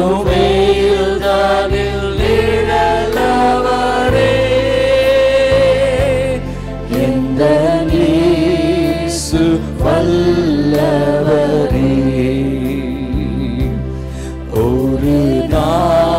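Christian worship song: a voice singing long, wavering held notes over backing music with a beat.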